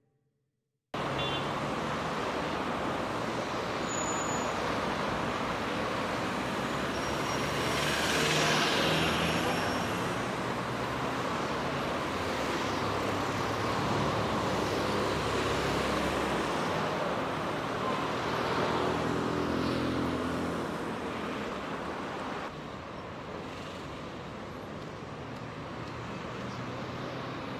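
Road traffic on a busy city street: a steady wash of cars driving past, starting abruptly about a second in after silence. One vehicle passes close about a third of the way through, and the traffic steps down quieter near the end.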